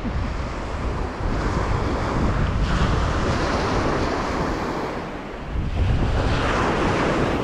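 Surf washing ashore in two swells, with wind buffeting the microphone.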